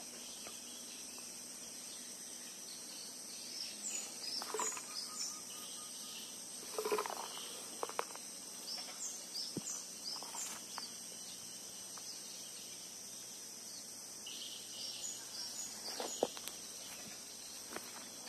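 Mangrove ambience: a steady high insect drone, with a bird calling in quick runs of short, high chirps three times. A few sharp knocks fall in the middle and near the end.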